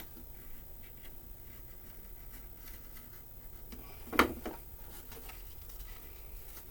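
Faint scratching of a knife blade scoring cardboard gasket material, with one sharp knock about four seconds in.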